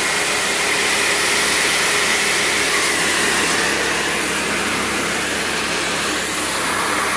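Karcher K2 Compact 1400-watt electric pressure washer running steadily, its pump humming under the hiss of the water jet spraying onto a wooden decking board and stripping old green paint.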